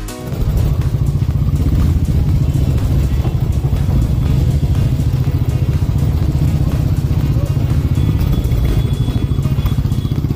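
Several motorcycle engines running at low speed right beside the microphone, a steady deep rumble with a fast, even pulse.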